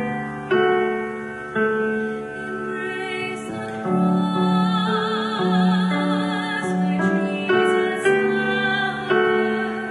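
Slow piano music: chords struck every second or so and left to ring, with a held melody note sung or played with vibrato about halfway through.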